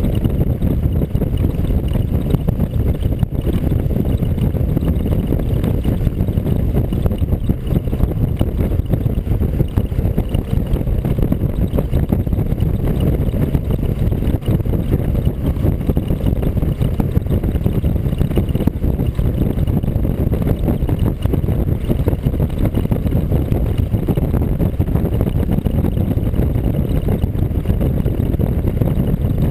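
Steady low rumble of wind on the microphone mixed with vehicle and road noise, from a vehicle driving at speed on an open road.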